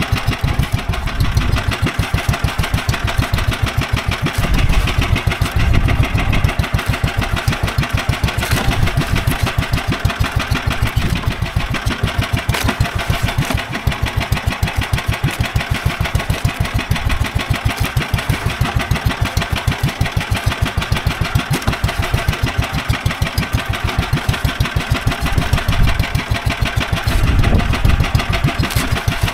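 Small fishing boat's engine running steadily with a fast, even chug, swelling a little a few seconds in and again near the end.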